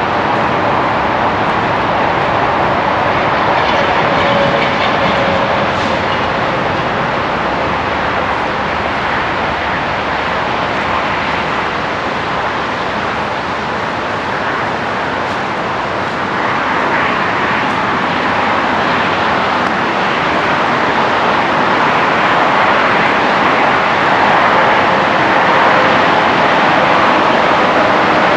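Steady rush of highway traffic on Interstate 80 below, growing louder twice as heavier vehicles pass.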